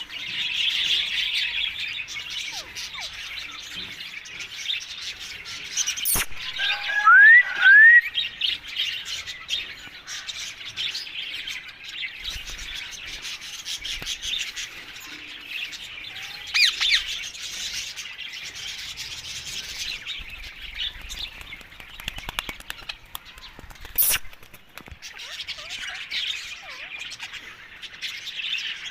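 Rose-ringed (Indian ringneck) parakeets chirping and squawking continuously, with two loud rising whistles about seven seconds in and a couple of sharp clicks.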